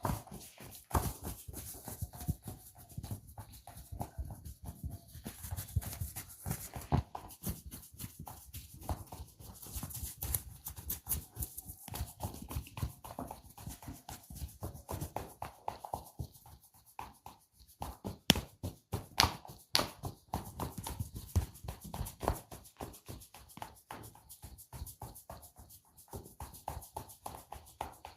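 Ear cleaning and ear massage heard close to the microphone: a dense, irregular run of quick taps, clicks and rubs on the ear and head, with a few louder taps about two-thirds of the way through.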